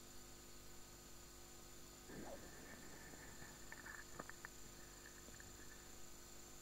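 Near silence: room tone with a faint steady electrical hum, and faint high chirps with a few short ticks from about two seconds in.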